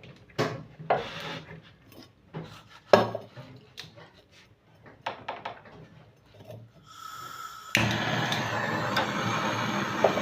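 Tools and metal parts knocking and scraping while a refrigerator compressor is fitted. Near the end a steady rushing noise starts abruptly and keeps going.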